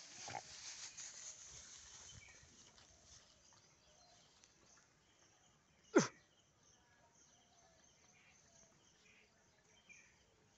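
Dry straw and leaf litter rustling as dogs nose through it, strongest in the first couple of seconds, with one sharp click about six seconds in.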